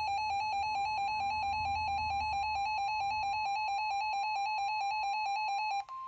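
Weather alert radio sounding its alarm: a loud, rapidly pulsing beep over the broadcast's faint steady warning alarm tone. The beeping cuts off near the end, leaving the NOAA Weather Radio warning alarm tone sounding alone and steady.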